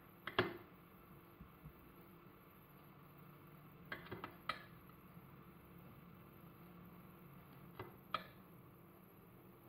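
Quiet room tone with a steady low hum and a few faint clicks and taps. One comes about half a second in, a small cluster around four seconds, and two near eight seconds.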